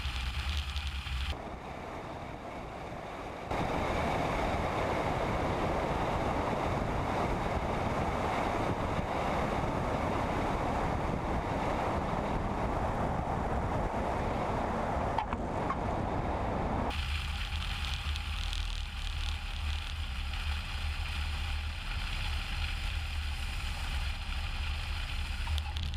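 Light single-engine airplane's engine and propeller drone heard from the cockpit during the approach and landing. From about three seconds in until past the middle, a loud rush of wind noise covers it, then the steady engine drone returns.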